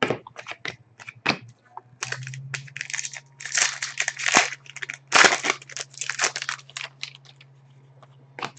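Foil trading-card pack wrapper crinkling and tearing as it is handled and opened, in dense crackly bursts after a few light clicks, over a steady low hum.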